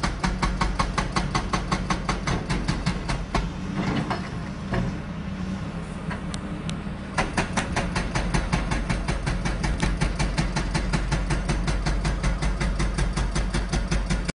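Hydraulic breaker hammer on a Caterpillar excavator pounding in rapid, evenly spaced blows over the diesel engine's steady running. The hammering stops for a few seconds about a third of the way in, leaving only the engine, then starts again.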